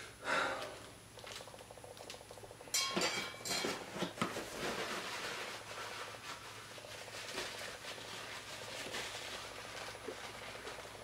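Crispy deep-fried whole croaker fish crackling as fingers break and pull at its crust and fins: a few sharp cracks about three seconds in, then a long run of fine crackling.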